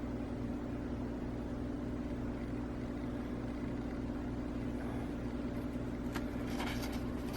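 A steady mechanical hum with a constant low tone, and a couple of faint clicks near the end.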